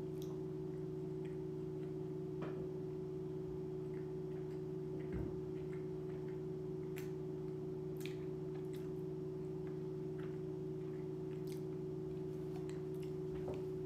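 Steady low hum, the quiet tone of a kitchen, with faint scattered clicks and small mouth sounds from chewing a sandwich.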